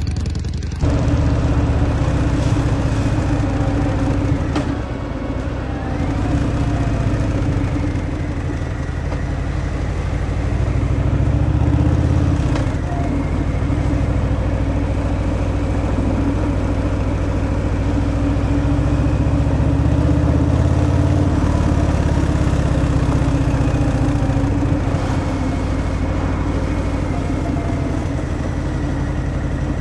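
Harley-Davidson Fat Boy's Milwaukee-Eight 114 V-twin engine running through its stock exhaust, its engine speed rising and falling a few times.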